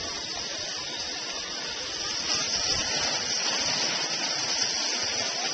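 Garden hose spraying water over a hot, covered lobster bake, a steady hiss of spray and rising steam.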